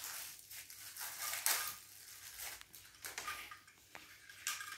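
Plastic packaging rustling and crinkling in the hands as a small plastic toy is taken out of it, with irregular light clicks and scrapes.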